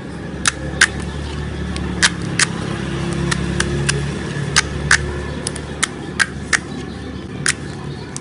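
Slime being squeezed and poked, giving about a dozen sharp, irregular clicking pops from trapped air bubbles, over a steady low rumble.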